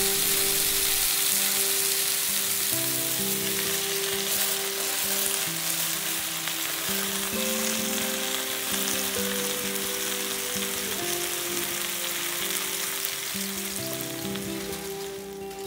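Chicken thighs sizzling in oil in a non-stick frying pan, a dense hiss that slowly dies down, fading most near the end as the heat is turned low and the pan is covered with tin foil. Background music plays underneath.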